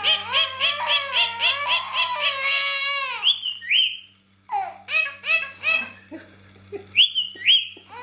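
Baby laughing in quick rhythmic bursts, with a couple of sharp high squeals and a short pause midway.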